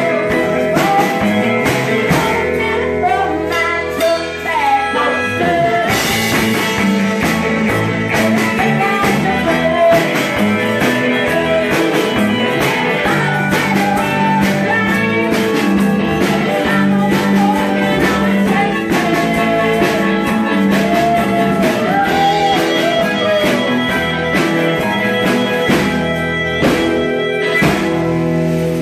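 Rock and roll band music with electric guitar, bass and drums at a steady beat, with a singing voice.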